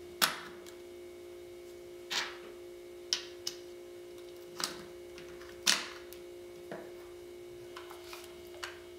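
Several short clicks and knocks of an HK416 .22 rifle's receivers and takedown pins being fitted together by hand, the loudest near the start and a little before six seconds in, over a steady faint hum.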